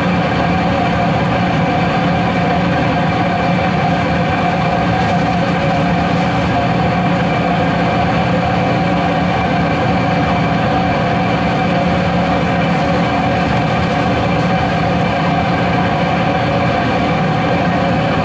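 Steady mechanical drone of commercial kitchen equipment running, a constant hum holding several fixed tones.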